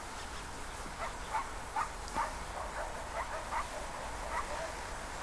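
A string of about ten short, faint animal calls between one and four and a half seconds in, over a steady background hiss.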